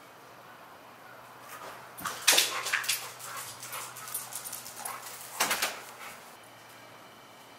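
A dog giving short vocal sounds: a cluster of them about two seconds in and another about five and a half seconds in.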